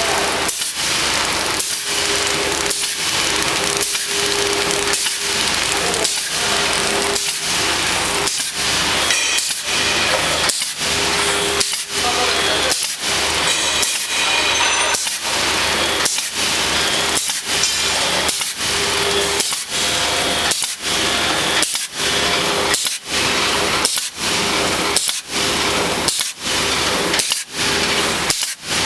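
CW-800ZD die-cut handle plastic bag making machine running: dense mechanical noise with a steady hum, broken by a brief drop about every three-quarters of a second as the machine goes through its repeating cycle.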